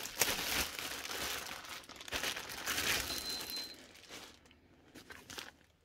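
Packing paper crinkling and rustling in quick crackles as a bag is unwrapped, dying away after about four seconds to a few faint rustles.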